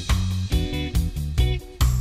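Upbeat background music: strummed guitar chords over a bass line, struck in a steady rhythm.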